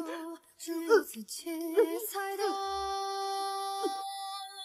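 Background music: a female voice sings a slow, wordless-sounding melody in short phrases, then holds one long note near the end.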